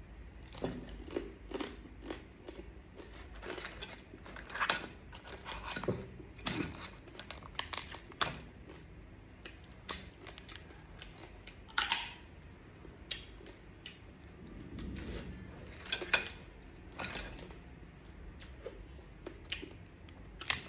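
Hard shell of a marinated mud crab cracking and crunching as it is broken apart and bitten, with chewing in between. The cracks come irregularly, a few sharper snaps standing out.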